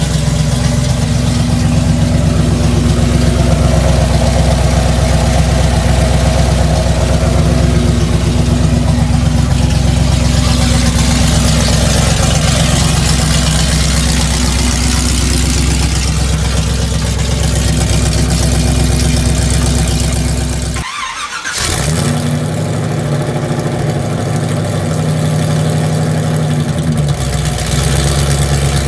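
454 big-block V8 running steadily. The sound breaks off for a moment about two-thirds of the way through, then the engine is heard running again.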